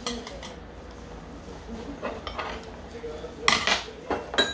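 Metal spoon and utensils clinking against stainless steel bowls and pots during a meal: scattered clinks, with a louder clatter near the end.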